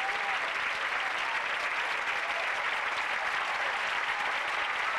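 Theatre audience applauding, dense and steady, for a ballet dancer's bow.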